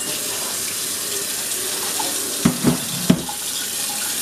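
Kitchen tap running steadily into the sink as a measuring cup is filled with water, with three quick knocks about halfway through.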